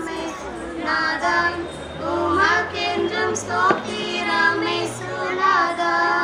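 A small group of women singing a Tamil Christian welcome song in chorus through microphones, over a steady held accompaniment note.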